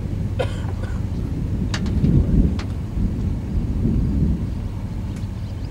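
Low, rumbling thunderstorm noise that swells twice, about two seconds in and again around four seconds, with a few faint clicks.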